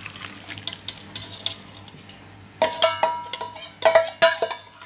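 Whey and curdled milk poured from a steel pot into a cloth-lined strainer, trickling softly. In the second half, a series of ringing clinks of steel utensils knocking together.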